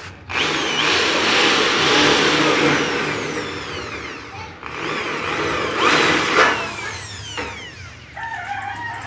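Electric drill boring holes through the overlapped sheet-metal joint of a pre-painted box-gutter corner, in two drilling runs: the first about four seconds long, the second about three.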